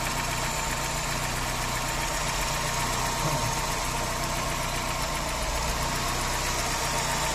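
VW Saveiro engine idling steadily with its drive-belt noise gone after water was poured between the belt and pulley. Water quieting it points to the pulley rubbing on its cover.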